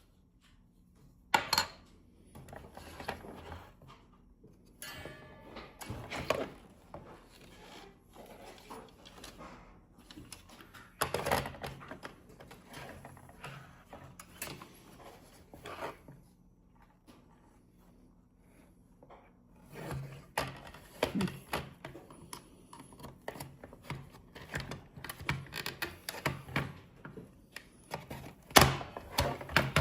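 Irregular clicks, knocks and scrapes of the plastic case and internal parts of a GE Simon XT alarm panel being taken apart. Sharper knocks come about a second and a half in, about eleven seconds in and near the end.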